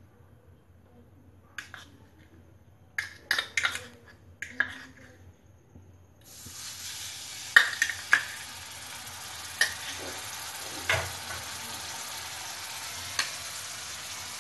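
A few sharp clinks and knocks, then about six seconds in a ginger-garlic-onion paste hits the hot oil in an iron kadai and starts sizzling steadily. A few sharp knocks sound over the sizzling.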